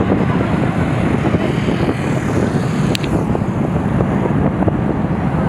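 Jet roar of an Airbus A321's two IAE V2500 turbofans, heard from behind the aircraft as it rolls out down the runway just after landing: a loud, steady, low rumble with a rough crackle.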